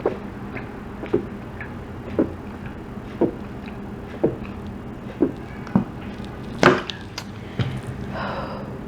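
A person gulping fizzy soda straight from a bottle, about one swallow a second, the loudest near the end, followed by a breath out.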